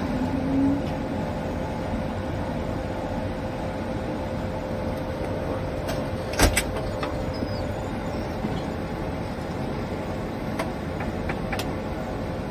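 Steady cockpit noise of an Airbus A220 standing with its engines running: a constant hum carrying one steady tone. A single sharp click comes about six seconds in, with a few faint ticks later.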